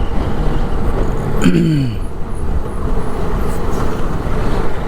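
TVS Apache RR 310 motorcycle under way on the road: steady engine and wind rush at the rider's microphone. About a second and a half in, a pitched tone falls briefly.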